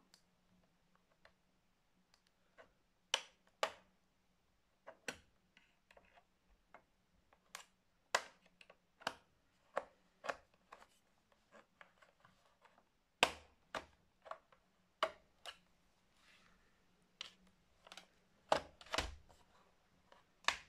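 Plastic laptop casing clicking and snapping as its base panel is pried apart with a metal pry tool: a string of sharp, irregular clicks, a few louder snaps near the end with a dull knock.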